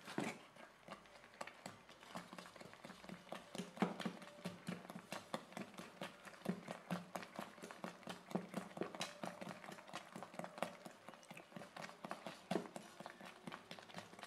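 Spoon beating thick adai batter in a metal bowl: rhythmic knocks and scrapes against the bowl's side, about three or four a second, with the wet slap of the batter.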